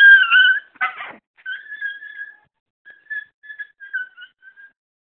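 An animal crying out after a shock from an electric fence wire: loud, high cries at the start, then a string of fainter, thin whining cries that die away.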